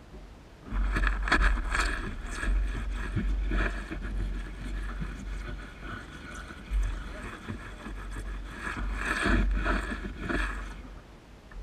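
Windscreen wipers and washer running on a mud-caked windscreen: the wiper motor hums while the blades scrape and smear mud across the glass in uneven strokes. It starts about a second in and stops about a second before the end.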